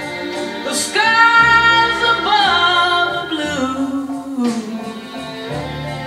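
A slow ballad with a woman singing over strings and guitar, played through iLoud Micro Monitor speakers and picked up by a camera's built-in microphone. About a second in she holds a long note, which bends and then slides down.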